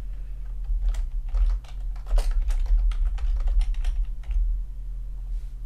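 Typing on a computer keyboard: a quick run of key clicks starting about a second in and stopping a little after four seconds, over a steady low hum.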